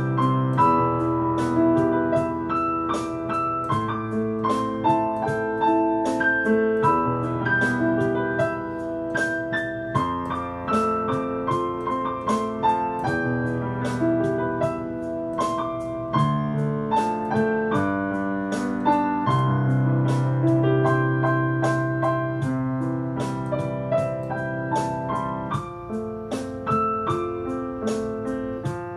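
Yamaha digital piano playing a Taiwanese Hokkien pop song: a right-hand melody over held left-hand bass notes and chords that change every few seconds.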